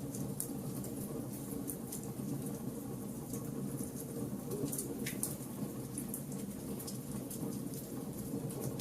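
Wood fire burning in a fireplace: scattered sharp crackles and pops over a steady low rumble.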